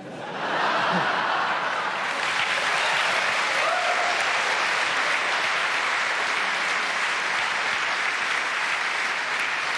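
Studio audience applauding, swelling up over the first second and then holding steady.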